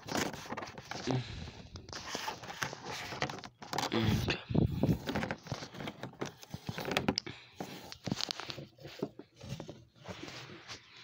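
Stiff cardboard scraping, rustling and knocking as it is handled and brushed against the phone, in irregular bursts that die down after about eight seconds.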